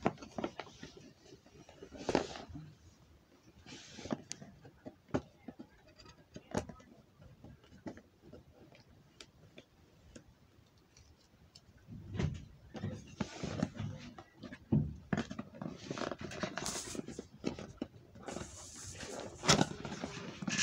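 Hands handling and opening a cardboard product box: scattered clicks, taps and scrapes of cardboard, turning to busier rustling and scraping in the second half as the box is opened.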